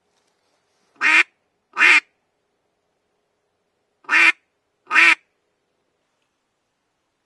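Duck call blown in four short quacks, in two pairs with the quacks of each pair under a second apart and about three seconds between the pairs. The hand cupped around the call's end is opened and closed to give the quacks the right tone.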